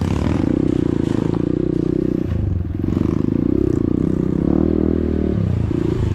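Honda CRF150L's single-cylinder four-stroke engine running at low trail speed on rough ground, the throttle easing off and picking back up twice, with the bike rattling over rocks.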